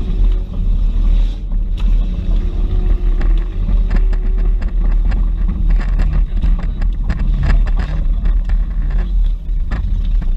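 Off-road 4x4 engine running on a trail, with many sharp knocks and clunks throughout.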